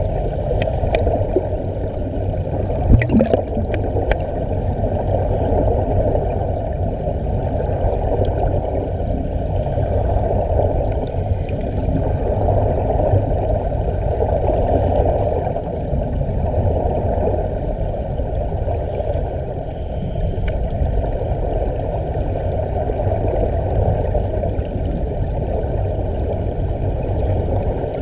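Steady, muffled underwater rushing and bubbling of air streaming from the walkers' air-fed diving helmets. A few sharp clicks come about three to four seconds in.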